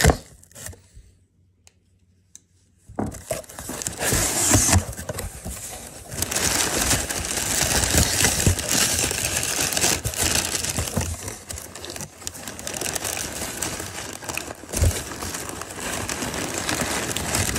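Brown kraft packing paper crinkling and rustling as hands pull it out of a cardboard shipping box, starting about three seconds in after a moment of near quiet.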